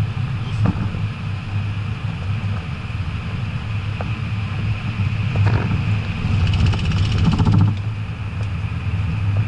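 BMW 535d's twin-turbo diesel straight-six running under way, a steady low drone over road and tyre noise, with a brief buzzing patch about seven seconds in.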